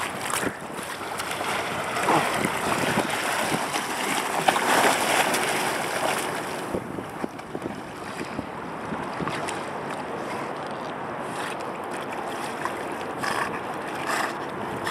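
Wind buffeting the microphone over moving river water, a steady rushing noise that swells for a few seconds about a third of the way in, with a few short splashes near the end.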